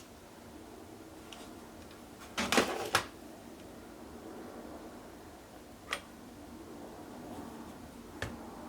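Small hard clicks from a screwdriver and battery screws being handled on an open laptop: a short clattering run of clicks, then two single clicks a few seconds apart.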